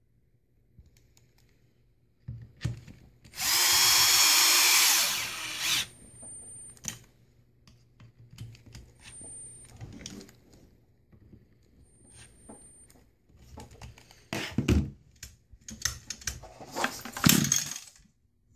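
Cordless screwdriver runs once for about two and a half seconds, driving in a screw of the recoil starter housing on an Echo SRM 2100 trimmer, followed by scattered handling clicks. Near the end come louder knocks and rattles as the trimmer is lifted and its starter rope is pulled.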